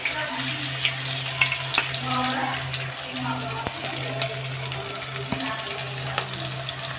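Sliced onions sizzling in hot oil in a kadai, with scattered light crackles over a steady low hum.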